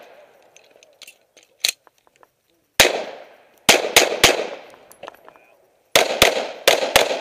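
Pistol fire during a shooting stage: one shot, then three in quick succession, then two quick pairs, each crack trailing off in echo. A fainter crack sounds about a second and a half in.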